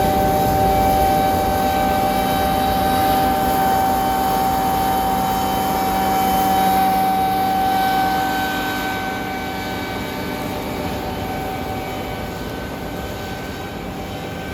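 Combine harvester running while harvesting wheat: a steady mechanical drone with a high whine over it. About eight seconds in the whine fades and the sound gets a little quieter.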